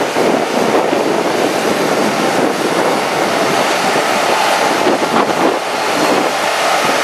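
Concrete mixer truck running steadily, its engine and turning drum discharging concrete down the chute into a pier hole.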